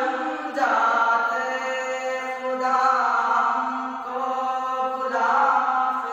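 A man's solo voice singing an Urdu hamd, an Islamic devotional song, in long held notes with slow wavering ornaments, one phrase after another.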